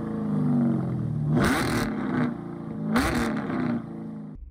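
Car engine revving up and falling back, with two louder surges about a second and a half apart, then fading out near the end.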